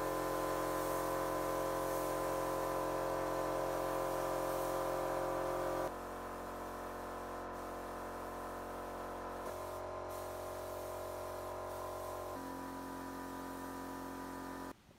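Background music: slow, sustained synth chords that change every few seconds, cutting off abruptly near the end.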